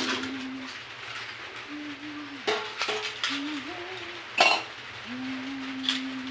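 Dishes and cutlery clinking as they are handled, with sharp clinks about two and a half seconds in, just after, and a louder one past four seconds. A quiet low tune runs underneath.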